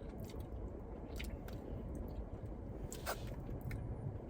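Close-up chewing and wet mouth clicks of someone eating a beef taco, over a steady low background hum, with one sharper click about three seconds in.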